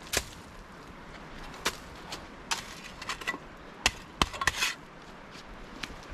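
About a dozen sharp knocks and snaps at irregular intervals, a few with a short ringing tail.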